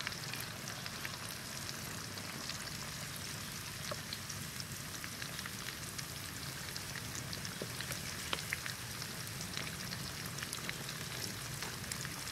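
Hot oil sizzling steadily in a wok, with scattered small pops and crackles.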